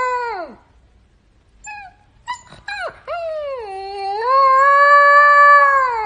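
Black-and-white husky-type puppy howling. A howl trails off with falling pitch; a short yip follows about a second and a half later, then a long, wavering howl from about three seconds in, which falls away at the end.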